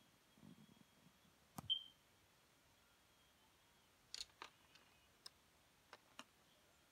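Near silence broken by a few light clicks and taps as the phone is handled and moved around. The sharpest click comes about a second and a half in, and a small cluster of ticks follows later.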